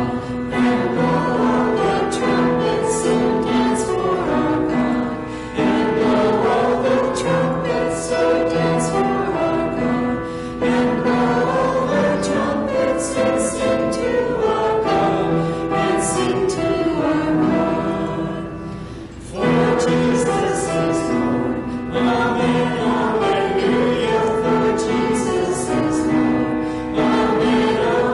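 A congregation singing a lively praise hymn with instrumental accompaniment, with a short lull between verses about nineteen seconds in.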